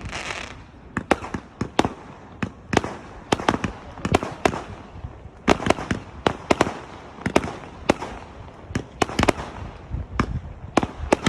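Fireworks going off: many sharp bangs in quick irregular succession, several a second, some in tight clusters.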